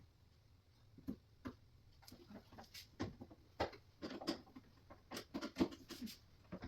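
Irregular light clicks, taps and small knocks of hands and tools handling flat-pack cabinet parts and hardware. They start sparse and get busier from about a second in.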